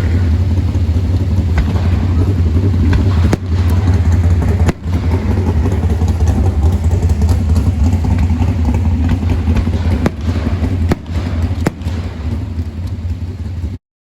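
Fireworks going off: several sharp bangs over a steady low rumble.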